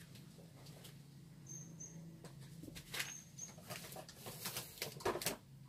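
Sheets of paper being lifted and shuffled on a desk: faint rustles and soft taps, sparse at first and busier in the second half, over a low steady hum. Two pairs of faint, short, high chirps come in the first half.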